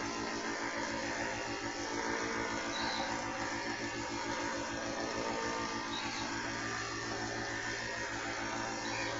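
Coopari portable high-pressure PCP air compressor running steadily with a fast, even pulsing hum as it fills a non-regulated PCP air gun's reservoir toward 2,000 PSI.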